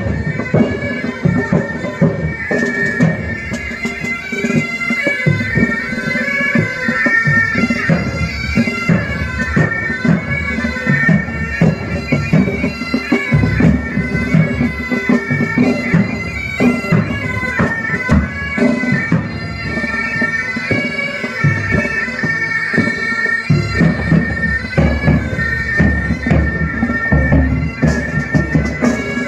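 Military pipe band playing: bagpipes sounding a melody over their steady drone, with drums beating along.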